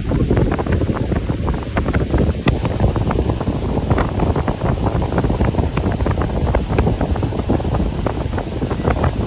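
Wind buffeting the phone's microphone on a moving pontoon boat: a loud, gusty low rumble with constant irregular thumps.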